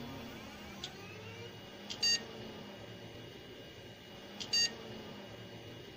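Two short electronic beeps, about two and a half seconds apart, each a bright high tone, over a faint steady low hum.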